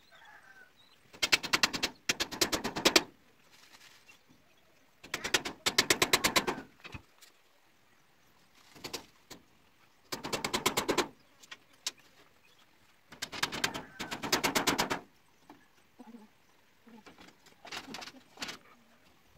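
Bursts of rapid knocking, about ten strikes a second, from a tool worked against the bamboo cage frame. The bursts last about one to two seconds each, five times, with pauses between.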